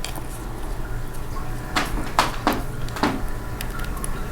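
A few short clicks and scrapes of small plastic and metal laptop parts being handled and fitted, four of them in quick succession about two seconds in, over a steady low hum.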